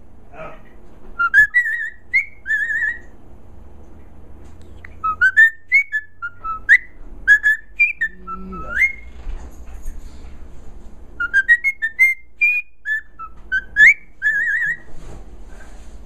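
Cockatiel whistling a tune in short phrases of quick rising and falling notes, three phrases with pauses of about two seconds between them.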